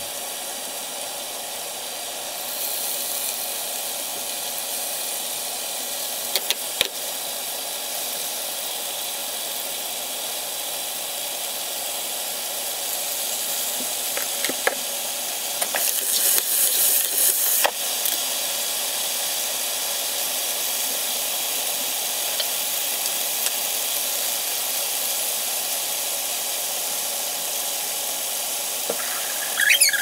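Chicken fillets (langet) frying in hot oil in a non-stick pan, a steady sizzle that steps up a little a few seconds in. A few light clicks and a louder burst of crackling about 16 seconds in ride on top of it.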